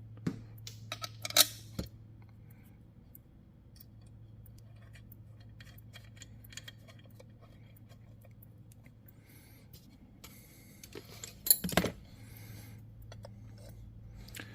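Scattered metallic clinks and clicks as small steel chainsaw parts and tools are handled, with the sharpest knocks about a second and a half in and again near twelve seconds, over a steady low hum.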